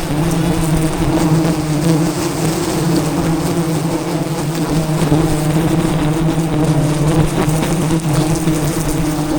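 A swarm of wild honeybees buzzing around their hive as a steady, unbroken drone.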